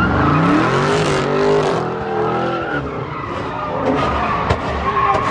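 A car engine revving hard, rising and falling in pitch, while the spinning rear tyres screech as the car does a burnout and drifts.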